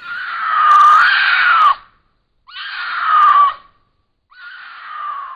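Cougar (mountain lion) screaming: three separate, human-sounding screams, each with a wavering pitch that drops away at its end. The first is the longest and loudest, and the third is the faintest.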